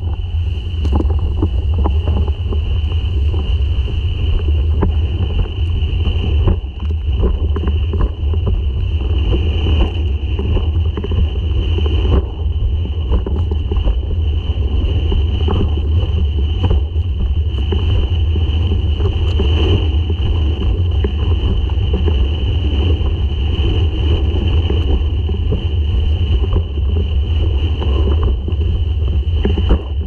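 Strong wind buffeting the microphone while windsurfing at speed, with rushing water and spray and many short knocks as the board slaps across chop. A steady high whine runs through it.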